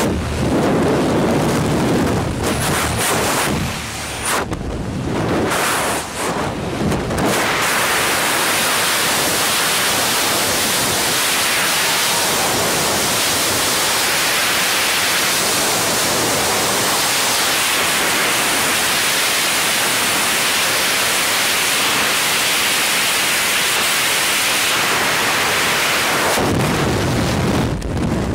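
Freefall wind rushing over the camera microphone during a tandem skydive, gusty at the exit from the aircraft door and then a loud, steady roar of air. It thins out shortly before the end as the parachute canopy opens.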